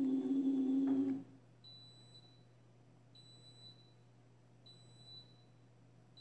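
A dishwasher's loud steady hum stops abruptly about a second in. The dishwasher then beeps: short high-pitched beeps about every second and a half. This is the end-of-cycle signal repeating nonstop, which the owner takes for a fault.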